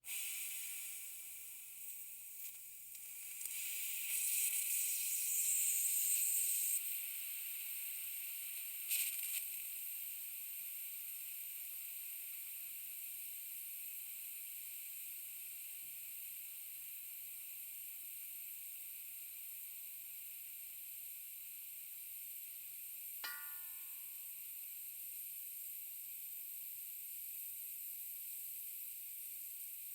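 Compressed air leaking slowly from an air tank: a steady high hiss that swells louder for a few seconds early on, with a short spurt about nine seconds in. A brief ping rings out about 23 seconds in.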